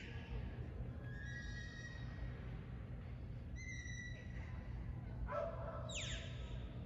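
Handler's shepherd's whistle commands to a herding dog working sheep. A held whistle comes about a second in and a short one a little before halfway, then a sharp falling whistle near the end.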